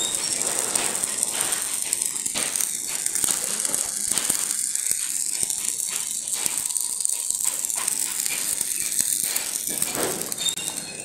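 Electric arc welding on the steel of a large iron kara: the arc gives a steady, dense crackle and sizzle, easing slightly near the end.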